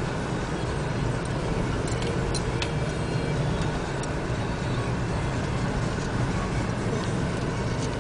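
A 4x4 driving over a snow-covered track, heard from inside the cabin: a steady low rumble of engine and tyres, with a few scattered light clicks and knocks, most of them about two to three seconds in.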